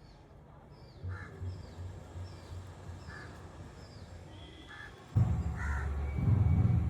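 Crows cawing several times. About five seconds in, a much louder low rumble starts and continues.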